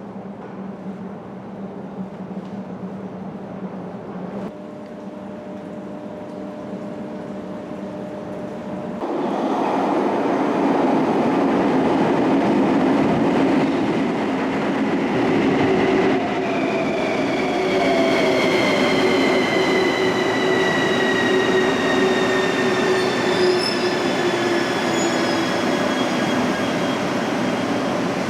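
Bucharest Metro train running, a rumble that turns suddenly louder about nine seconds in. From about halfway on, a high whine falls slowly in pitch.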